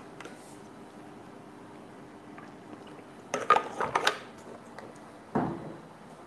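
Someone drinking water: a drinking vessel is handled, with several sharp clinks and knocks about three to four seconds in and a short softer noise about a second later, over a faint steady hum.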